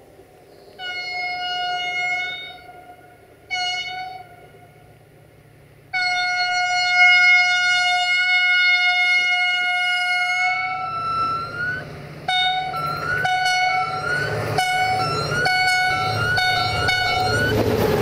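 Diesel locomotive air horn (GM 64-1125-5) sounding one steady note: a blast, a short toot, a long blast of about four seconds, then a quick run of short toots. The engine and train rumble grows louder underneath as it approaches.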